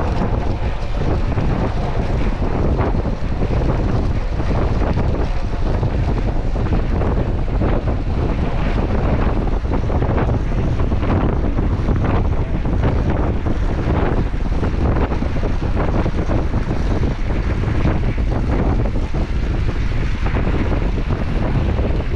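Steady wind buffeting the microphone of a camera on a track bicycle riding round a velodrome in a group.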